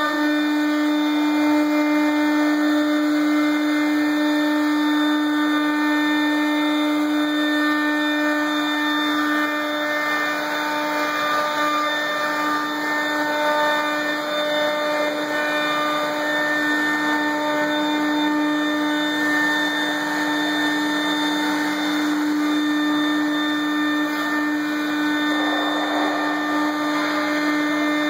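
Router spindle on a KUKA six-axis robot arm milling MDF: a steady whine with fixed tones over the hiss of the cutter in the board, unchanging as the arm moves.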